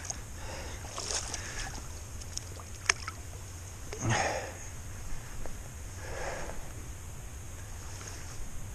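Steelhead being let go by hand in shallow river water: soft water sloshing and a few light swishes and splashes over a steady low background noise, with one short click about three seconds in.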